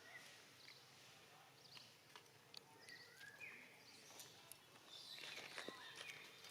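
Faint outdoor ambience with scattered short, high chirps and squeaks from small animals, plus a few light clicks.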